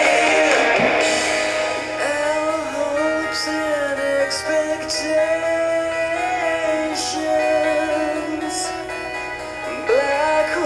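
A song: a singer holding long, gliding notes over guitar.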